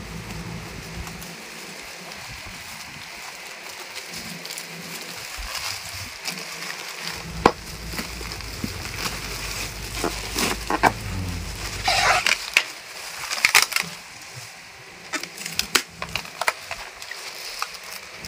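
Plastic packaging crinkling and crackling as black bubble wrap is pulled off a clear inflated air-column bag. Irregular crackles and clicks come thickest about twelve seconds in.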